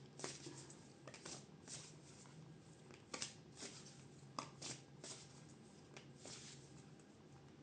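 Tarot cards being shuffled and handled: faint, irregular soft rustles and flicks of cards.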